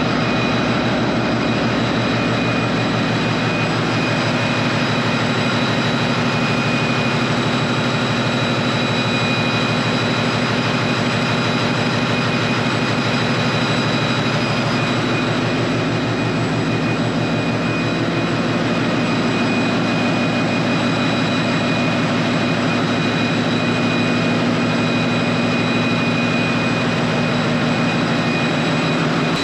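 Ship's engine room with the main engines running: a loud, steady mechanical drone with constant high-pitched whines over it.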